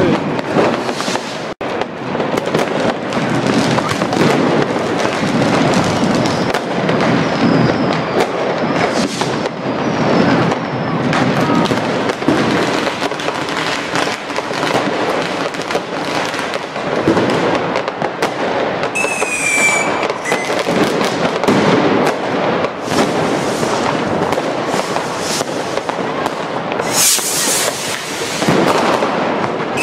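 Mass street fireworks: firecrackers and rockets going off almost without pause, a loud, dense run of bangs and crackling, with a short whistle about two-thirds of the way in.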